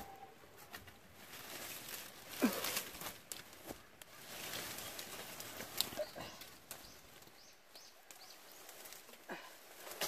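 Dry brush and wild rose brambles rustling and crackling as the vines are pulled and dragged out by hand, with scattered twig snaps and clicks, the sharpest about two and a half seconds in.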